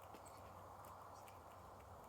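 Faint, irregular taps, a few each second, of birds pecking at scattered feed, over a steady low hiss and hum.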